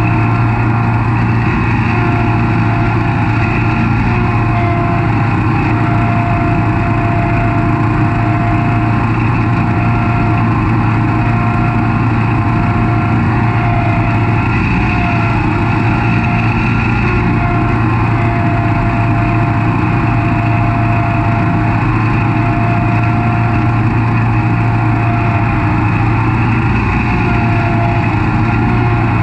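Snapper Pro SS100 36-inch stand-on mower running steadily while mowing: a constant engine drone with a steady high whine over it.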